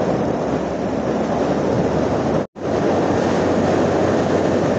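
Wind rushing over the microphone of a motorcycle moving at highway speed, a loud, steady roar with the bike's running and road noise buried beneath it. The sound cuts out for an instant about halfway through.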